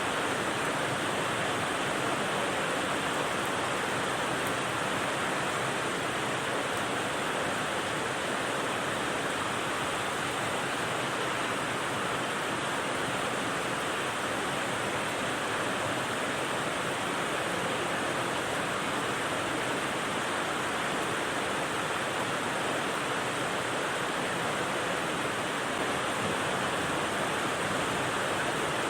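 Steady rain noise: an even, unchanging hiss.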